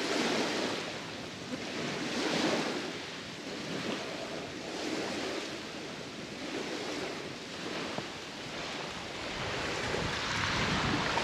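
Small waves washing onto a sandy beach, the wash swelling and fading every two to three seconds.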